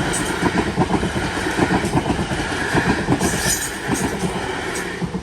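Electric passenger train passing over a level crossing, its wheels clattering in rapid clicks over the rail joints with a steady hiss; the sound drops away suddenly near the end as the last carriage clears the crossing.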